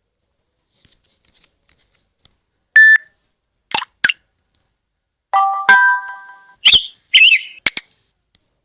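A run of short Samsung Galaxy S7 electronic alert tones, with silence between them: a single beep, two quick pops, a short multi-note chime, then several brief chirps and pops.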